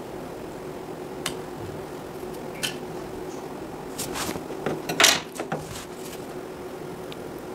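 Clicks and knocks from an electric scooter charger's circuit board and tools being handled on a workbench: single clicks about one and two and a half seconds in, then a cluster of knocks around four to five and a half seconds in, the loudest just after five seconds. A steady hum runs underneath.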